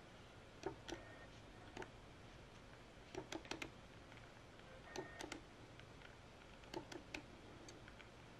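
Faint paper clicks and flicks as the pages of a small pad of Prima journal cards are turned one by one, a few soft ticks every second or two.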